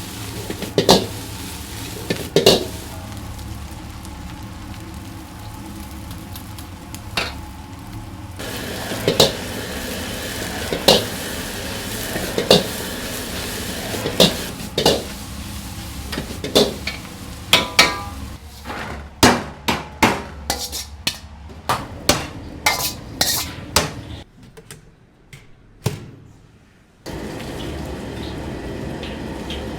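Fried rice being stir-fried in a wok: a metal ladle clangs against the wok every second or two over a steady sizzle. Near the end comes a quick run of clangs, then the noise drops away for a few seconds before a steady rush returns.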